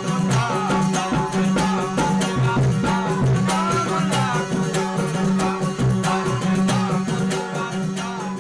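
Baloch folk music played live: a suroz (bowed upright fiddle) carrying a wavering melody over the drone of a plucked long-necked lute, with a double-headed barrel drum beaten by hand and a man singing.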